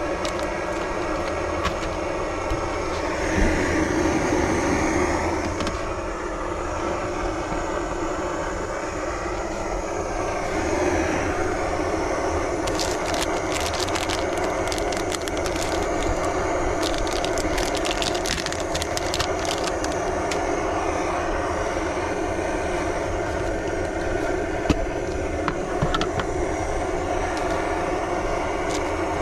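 Jetboil camping stove's gas burner running with a steady roar as it heats water, with crinkling and clicking handling noises in the middle.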